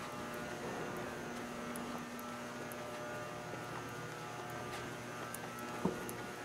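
Steady electrical hum and buzz of a large hall's room tone, with one short knock about six seconds in.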